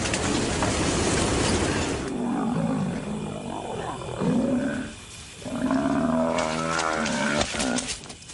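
Lions growling and snarling in a string of rough calls while they pull down a buffalo bull, with a short lull about five seconds in.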